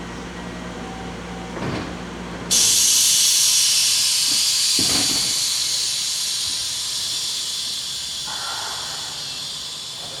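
Compressed air venting from a JR West local electric train: a sudden loud high hiss starts about two and a half seconds in and slowly fades over several seconds, with a couple of faint knocks.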